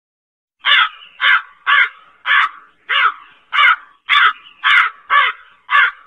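Crow cawing: a loud, rapid series of about ten caws, roughly two a second, starting about half a second in.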